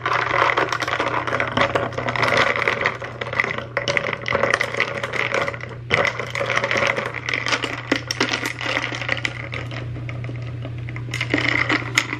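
Iced coffee being stirred with a spoon in a glass mason jar: rapid, continuous clinking of ice and metal against the glass, easing briefly near the end.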